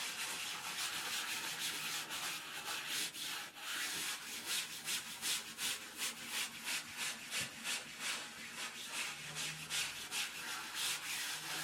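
Stiff washing-up brush scraping over the fabric of a pet bed in quick repeated strokes, about two or three a second, brushing cat hair off it.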